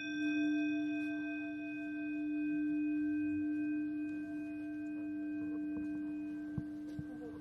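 Sound-art soundtrack of sustained pure tones. A steady low tone swells in and holds, with fainter high ringing tones above it; one of the high tones stops about six and a half seconds in. Two faint clicks come near the end.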